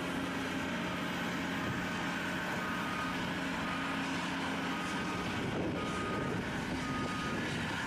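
Excavator's diesel engine running steadily at a pipe-laying site, with faint short beeps coming and going over it.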